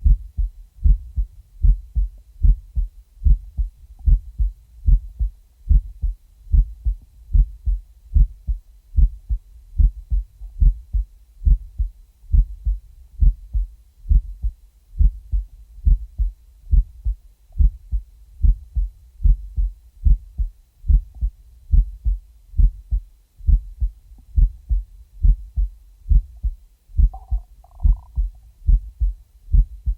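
Heartbeat: a steady, even rhythm of short, low thumps.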